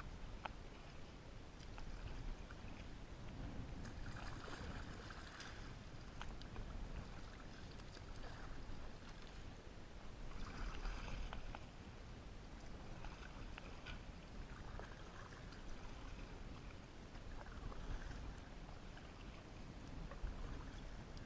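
Kayak paddle strokes: the blades dip and splash in the water every couple of seconds, over a low steady rumble.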